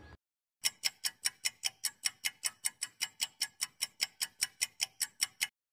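Countdown-timer sound effect: a clock-like ticking at about five ticks a second that starts about half a second in and cuts off abruptly near the end. It marks the time given to answer a quiz question.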